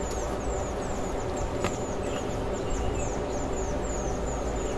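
Small birds chirping: a quick run of short, high, falling chirps, several a second, over a steady low rumble, with a single click about a second and a half in.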